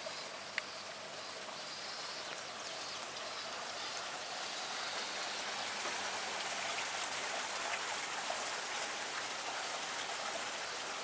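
A steady, even rushing hiss, with one sharp click about half a second in.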